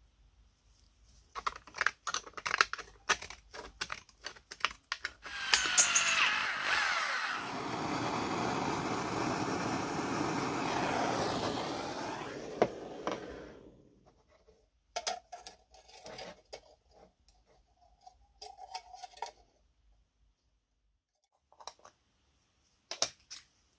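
Small steel parts handled and clinking against a metal plate on a workbench, then a steady noise lasting about eight seconds, then a few scattered clicks.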